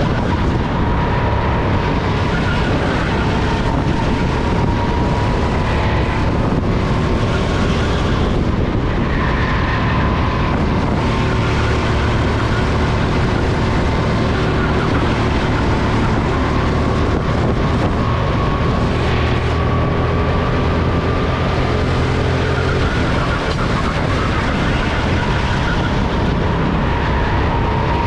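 Onboard sound of a Sodi RT10 rental go-kart's engine running continuously at racing speed, its pitch drifting gently up and down with the throttle. Wind noise on the microphone runs underneath.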